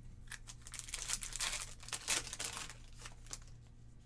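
Foil Pokémon TCG booster pack wrapper being torn open and crinkled in the hands. It is a run of crackling and tearing that is loudest in the middle and dies away about three seconds in.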